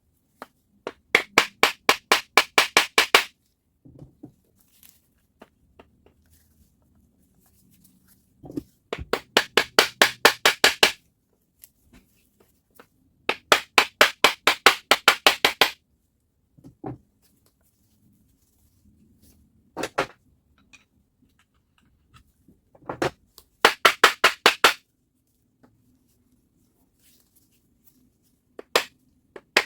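Quick bursts of hammer blows on metal, about five or six blows a second, each burst lasting about two seconds, with a few single knocks between bursts, as the reciprocating saw is knocked apart.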